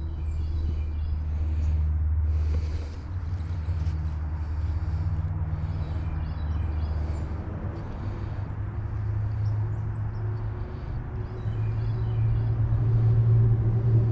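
A motor hums steadily, shifting up in pitch and getting louder about two-thirds of the way through, with birds chirping.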